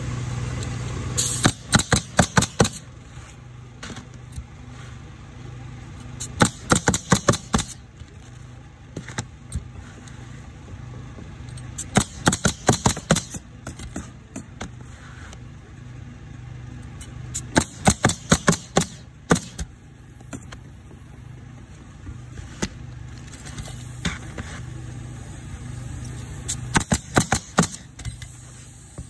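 Pneumatic coil roofing nailer driving nails into asphalt shingles, in quick runs of several shots, one run every five or six seconds. A steady low hum runs underneath.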